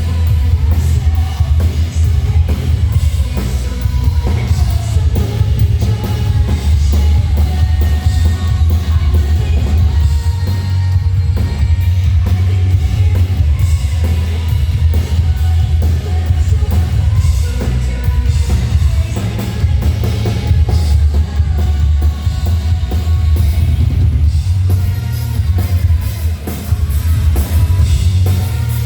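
Live rock band with a female lead singer playing loud, with pounding drums and heavy bass.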